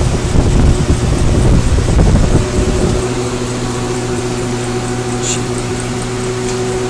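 1987 Mazak M5 CNC lathe running: a heavy rumble for about the first three seconds, then a steady machine hum.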